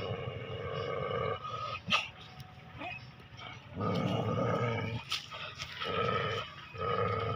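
A dog growling in long, low, rough rumbles, four times over, with a few sharp clicks in between.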